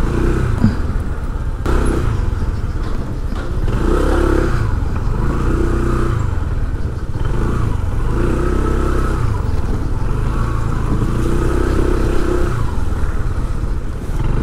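Steady engine and road noise of motor vehicles in street traffic, with the engine pitch rising and falling now and then.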